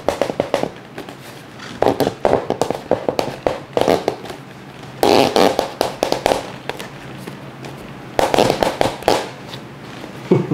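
Foam glider wing being worked back and forth onto its carbon wing spar, squeaking and crackling foam on foam in three bursts of a second or two each.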